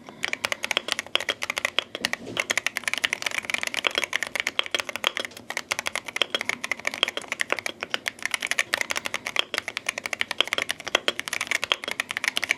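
Wooting 80 HE mechanical keyboard with magnetic switches being typed on fast, a dense stream of key clacks with a couple of brief lulls.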